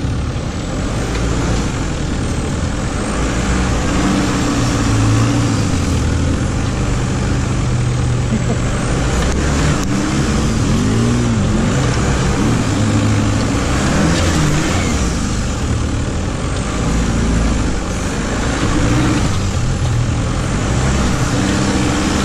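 VW Käfer buggy's air-cooled flat-four engine running under load while the buggy drives through deep sand, its pitch rising and falling with the throttle, most of all around the middle, over a steady noisy rush.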